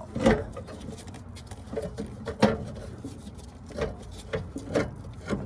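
About five short knocks and clicks from hands and tools working on parts in a car's engine bay, the two loudest about a third of a second in and halfway through.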